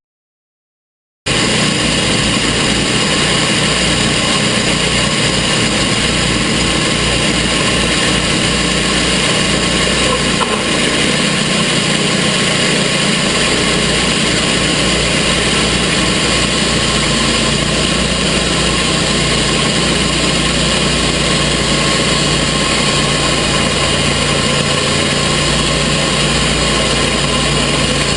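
Gas engine of a TimberKing portable sawmill running steadily. It cuts in suddenly about a second in, after a moment of silence.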